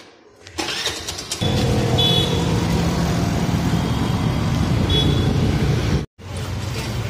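Riding a motor scooter through city traffic: wind buffeting the microphone over the scooter's engine and road noise. There are two short high beeps about three seconds apart, and the sound drops out abruptly near the end.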